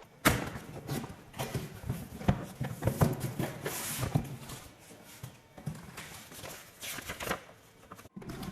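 Irregular rustling, with clicks and knocks, of a box and its packaging being handled and opened.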